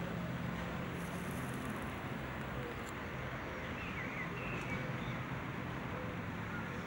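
Outdoor street ambience: steady distant traffic rumble, with a few faint bird chirps about halfway through.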